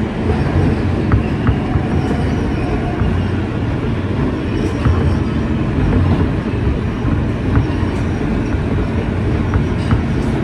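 An NYC subway train of R160B cars (Kawasaki-built, Siemens propulsion) running along the track, a steady rumble with scattered sharp clicks of the wheels over rail joints.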